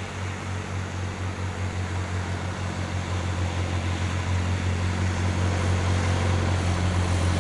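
Darter Commander 100 light plane's single piston engine and propeller running with a steady low drone, growing gradually louder as the plane comes in low on approach to the runway.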